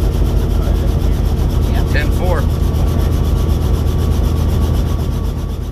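Helicopter engine and main rotor running steadily on the ground, heard from inside the doorless cabin: a loud, even hum with a rapid, even beat from the rotor blades.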